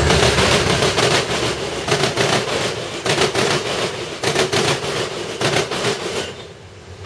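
Metrolink commuter train's bilevel coaches passing close by, their wheels clacking sharply and irregularly over rail joints and switch frogs; the clacking dies away about six seconds in.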